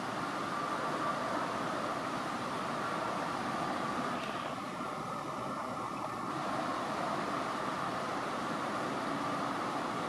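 Steady background hum and hiss, like a fan or distant machinery, with no bird calls; it dips slightly for a moment about halfway through.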